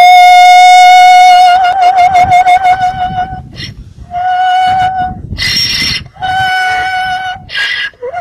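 Donkey braying in long, held, song-like notes with a wavering pitch. The first note lasts about three and a half seconds; two shorter ones follow, with short rasping breaths between them.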